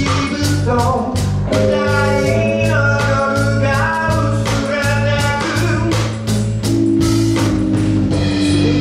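Live band playing: a male voice singing over electric keyboard, electric bass, congas and drum kit, with a steady drum beat.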